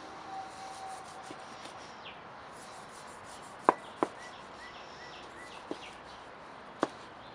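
Knife tapping sharply against a plastic cutting board while slicing grilled chorizo: four clicks in the second half, two of them loud. Faint chirping behind.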